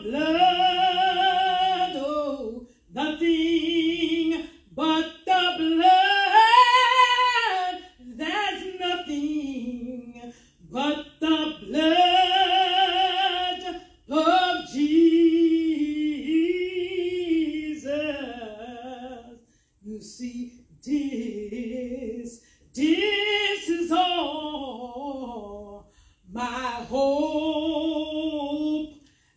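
A woman singing a solo a cappella into a handheld microphone, in phrases of a few seconds with vibrato on the held notes and short breaths between them.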